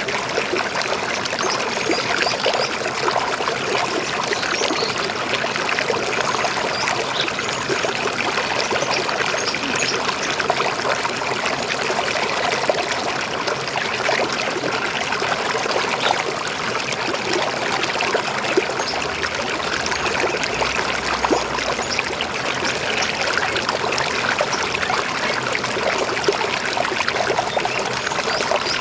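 River water flowing steadily, a dense, even splashing and trickling.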